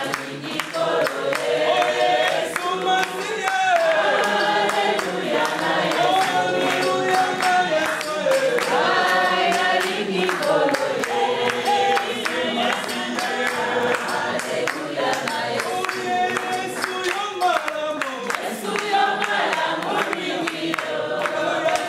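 A mixed group of men, women and children singing a song together in chorus, with handclapping along with the singing.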